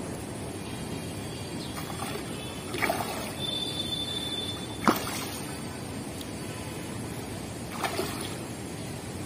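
Hooked fish thrashing and splashing at the pond surface as it is brought to a landing net: three sharp splashes about three, five and eight seconds in, the middle one the loudest, over a steady background hiss.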